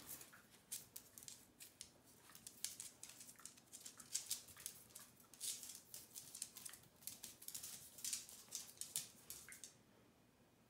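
Two small dogs play-wrestling on a cork floor: rapid, irregular clicks and scrabbles of their claws and feet on the floor. The clicking stops near the end as they stand still.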